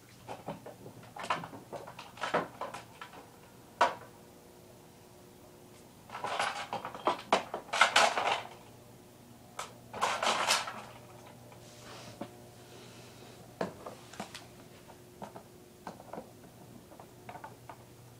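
Irregular knocks and clicks of objects being handled, with two longer noisy bursts in the middle, over a steady low hum.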